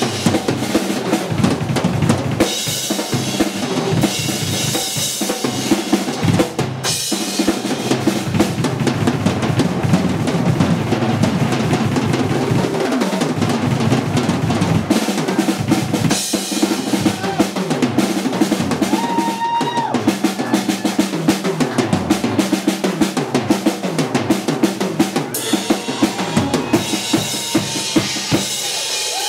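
Drum kit played solo: rapid, dense strokes on bass drum, snare and toms, with cymbal crashes coming in and out.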